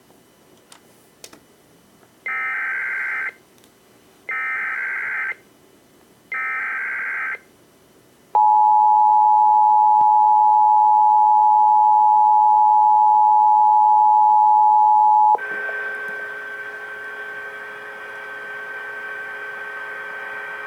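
SAGE EAS ENDEC relaying an Emergency Alert System alert: three loud one-second bursts of the SAME data header screech about two seconds apart, then the two-tone attention signal, a loud steady dual tone held for about seven seconds. After it cuts off, a quieter steady buzz of several tones carries on.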